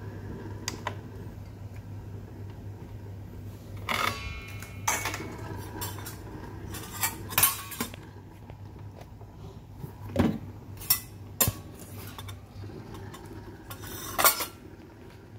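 Stainless steel ware clinking and clattering as an espresso portafilter, a small metal bowl and a spoon are handled and set down, in several separate knocks and rattles, the loudest near the end. A steady low hum runs underneath.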